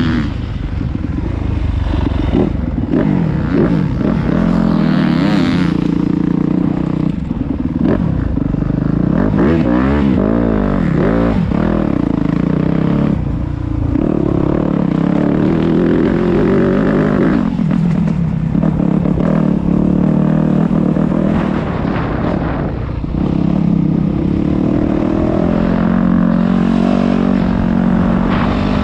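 Yamaha YZ250F motocross bike's single-cylinder four-stroke engine heard from on the bike while it is ridden around a dirt track, revving up hard and dropping back again and again as the rider accelerates, shifts and rolls off for corners.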